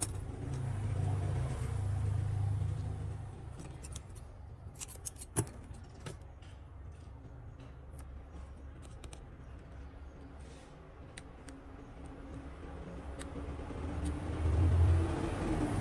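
Handling sounds of phone repair: small scattered clicks and taps as tape and plastic parts are pressed into a phone's frame, one sharper click about five seconds in, over a low rumble that swells at the start and again near the end.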